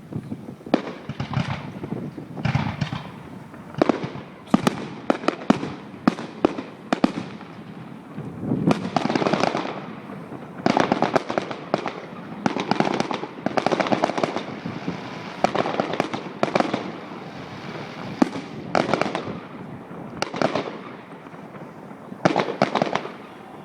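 A fireworks display: a string of sharp bangs from bursting shells, with several stretches of dense crackling where many small reports come close together.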